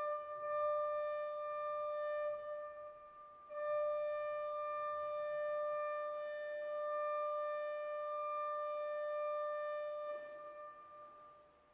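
Pipe organ holding a single high note, steady in pitch. It breaks off about three seconds in, sounds again half a second later, and dies away near the end.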